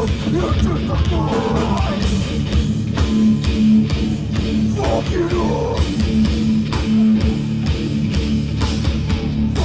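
Hardcore band playing live: heavy distorted electric guitars, bass and drums pounding out a steady beat.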